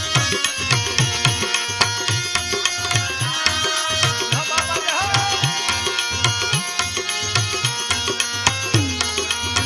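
Instrumental interlude of Gujarati devotional folk music. A hand drum plays a quick rhythm of low strokes that bend down in pitch, under held melody notes.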